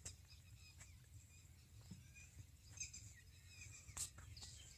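Faint outdoor ambience: scattered short, high bird chirps over a low steady rumble, with a sharp click at the start and a louder one about four seconds in.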